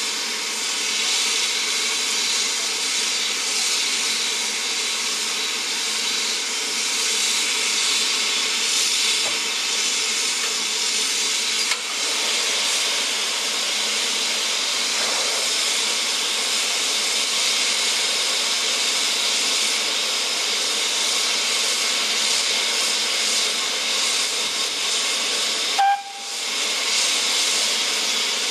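BR Standard Class 9F 2-10-0 steam locomotive No. 92212 letting off steam with a steady hiss. The hiss dips briefly once near the end.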